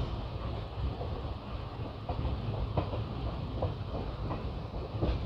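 Passenger train running through a station yard, heard from on board: a steady low rumble with irregular clacks of the wheels crossing rail joints.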